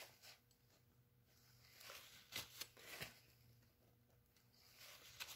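Faint scraping of a palette knife across wet oil paint on canvas, with a few light clicks.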